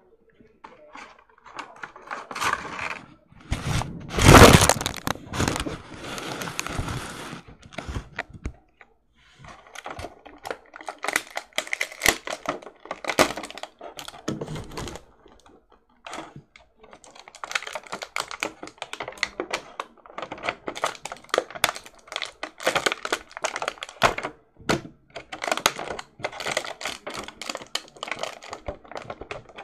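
A toy gift box being opened by hand: packaging rustling and tearing, with many clicks and knocks; the loudest burst comes about four seconds in.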